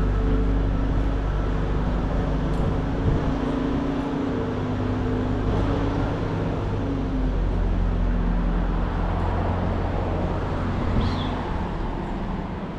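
Road traffic: vehicle engines running close by, a steady low hum whose pitch shifts every few seconds as vehicles pass.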